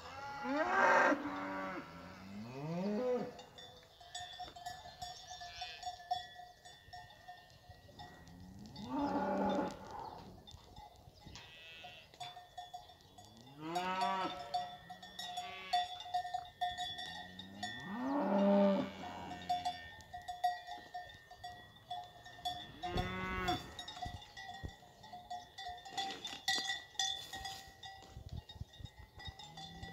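Lidia (Spanish fighting-breed) cows and calves mooing: about five long calls a few seconds apart, each rising and falling in pitch, the loudest near the start and about two-thirds through. A cowbell clanks faintly between the calls.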